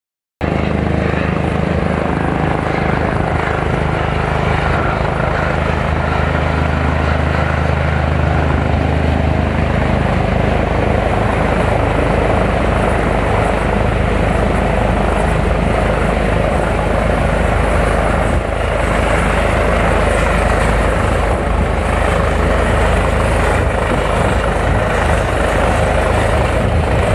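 Helicopter flying in close over a ship's deck: a loud, steady rotor and engine drone with a low, even hum at first, growing rougher and fuller from about ten seconds in as it comes close overhead.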